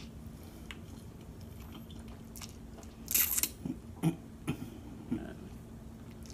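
People eating spicy instant noodles: a loud slurp of noodles about three seconds in, followed by a few shorter slurping and chewing sounds.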